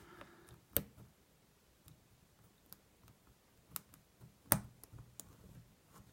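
Lock pick and tension wrench working in a car lock's keyway during single-pin picking: a handful of sharp metallic clicks spread apart, the loudest about four and a half seconds in.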